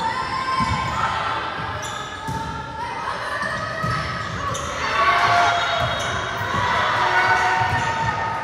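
Volleyball being hit and bouncing on a gym floor, a series of dull thuds, with players' and spectators' voices echoing in a large hall.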